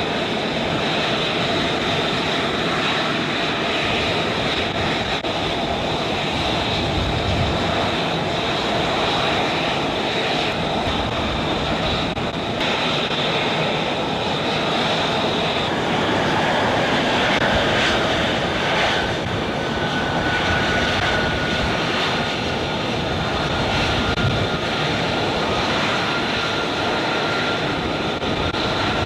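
F-35B Lightning II fighter's jet engine running loudly and steadily, a continuous rushing noise; about halfway through a high whine comes in and slowly sinks in pitch.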